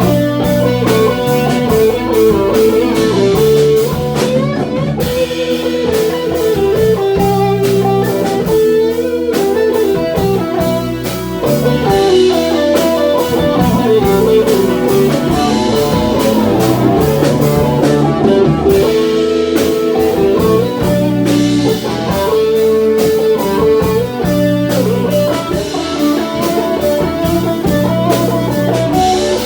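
Rock band playing the outro of a song: an electric guitar plays a melodic lead line over a steady drum kit beat.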